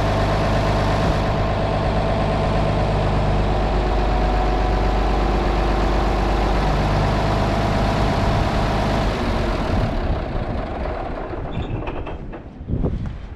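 An engine idling steadily, which winds down and fades out about ten seconds in; a few sharp knocks follow near the end.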